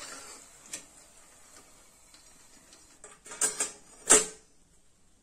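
Metal perforated ladle clinking against steel as fried kara sev is lifted out of the oil and tipped into a perforated steel colander. There are a few light clicks around three seconds in and a sharper clink just after four seconds.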